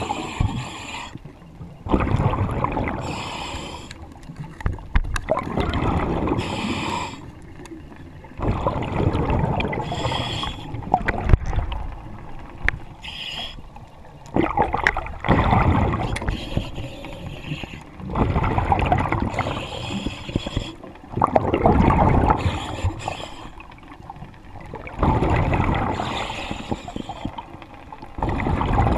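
Underwater breathing through a diver's regulator on surface-supplied air from a compressor hose: a new breath every three to four seconds, each a sudden rush of exhaled bubbles, some with a high inhale hiss.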